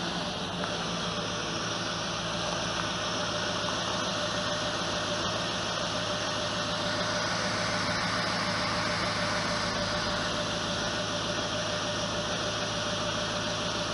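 Chevrolet Suburban's engine idling steadily close by, a constant hum and rush, with a faint steady whine joining in about halfway through.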